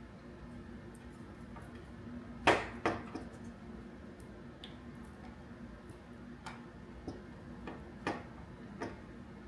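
Clicks and knocks of objects being handled, over a steady low hum: two louder knocks about two and a half seconds in, then several lighter clicks spaced about half a second apart near the end.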